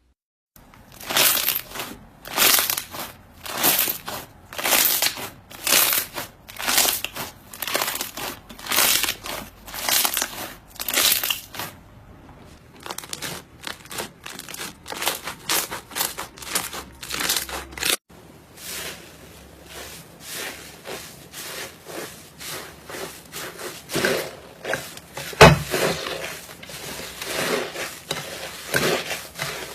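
Slime being squeezed and pressed by hand, making crackling squishes. These come about once a second at first, then turn quieter and quicker, with one sharp, louder click near the end.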